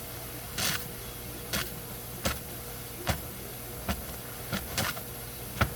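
A small homemade steam engine firing irregularly: about eight sharp chuffs, roughly one a second, over a steady low hum. It is only firing now and then, which the builder puts down to his gas stove not getting the boiler hot enough.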